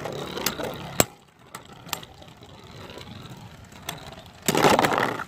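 3D-printed Beyblade spinning tops whirring in a stadium, with a few sharp clicks as they strike each other, then a loud rattling clash near the end as one top is hit and bursts apart.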